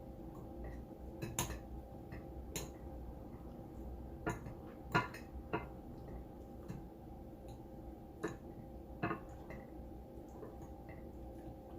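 Eating at a table: a fork clinks against a plate now and then as scattered single sharp clicks, with quieter mouth sounds of chewing between them.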